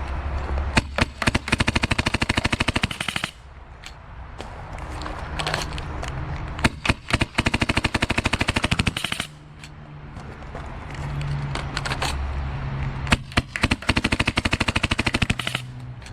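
Tacamo Hurricane G36KV magfed paintball marker firing in full-auto: a few single shots, then three long rapid bursts of about two seconds each with short pauses between.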